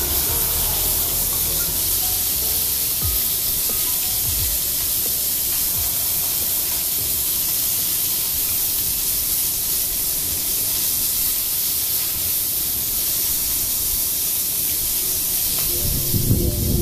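Pork belly sizzling in a small frying pan over a portable gas stove: a steady hiss.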